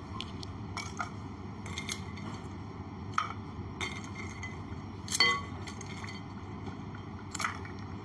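Ice cubes dropped one at a time into a drinking glass, each landing with a sharp glassy clink; about eight clinks, the loudest about five seconds in.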